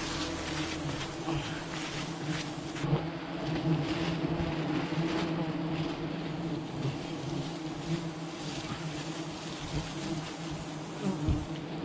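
A honeybee colony buzzing steadily around an exposed comb, with a few short knocks from branches being handled, the loudest near the end.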